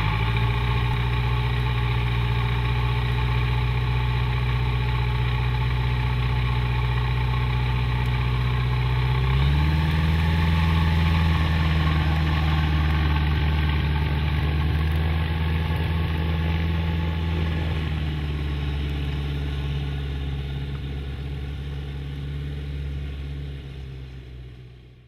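Light aircraft's piston engine and propeller running steadily. The engine speed steps up about ten seconds in, eases back slightly near eighteen seconds, and the sound fades out at the end.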